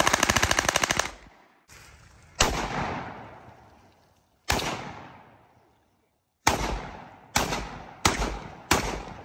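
A burst of rapid automatic gunfire lasting about a second, then six single rifle shots, each with an echo that fades away; the shots come closer together near the end.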